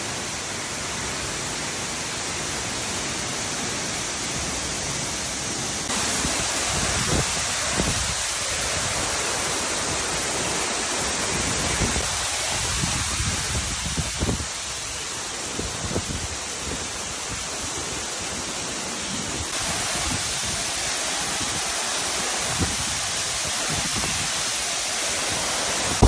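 Steady rushing of a waterfall pouring into a rock pool. The sound shifts slightly at cuts about six and twenty seconds in.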